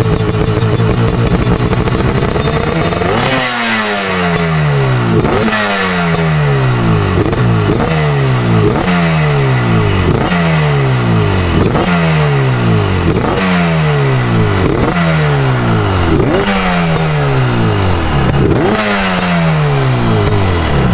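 Two-stroke motorcycle engine with an expansion-chamber exhaust, running steadily, then revved in a long series of sharp throttle blips about every second and a half, each rising quickly and falling back.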